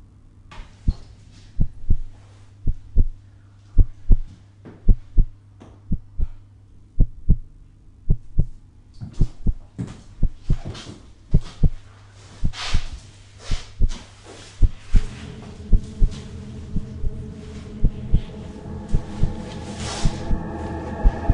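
Heartbeat sound effect in a horror-film soundtrack: slow double thumps about once a second over a low hum. About two-thirds of the way in, a throbbing drone with held tones joins and grows louder.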